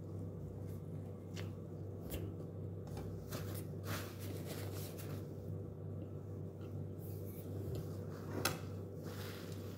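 Toast handled and torn by hand, giving scattered light crackles and crunches of the crust, the sharpest about eight and a half seconds in, over a steady low hum.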